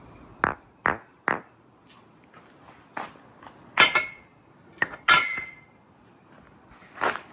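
Marbles clacking and dropping through a marble run: a string of sharp, irregular clicks, about nine in all, a few followed by a brief high ring.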